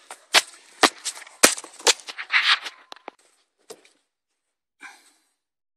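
Handling noise: sharp knocks and clicks, about four in the first two seconds, with a short rustle, then a few faint taps. A phone is being moved about and bumping against hard plastic trim while filming into a car's footwell.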